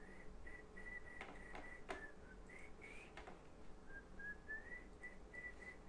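A person softly whistling a tune: short held notes with a few rising slides. About four sharp clicks, likely a computer mouse, come between about one and three and a half seconds in.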